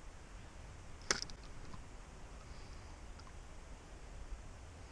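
Spinning rod and reel being worked while a hooked pike is played: one sharp click about a second in, then a few faint ticks, over a faint low rumble.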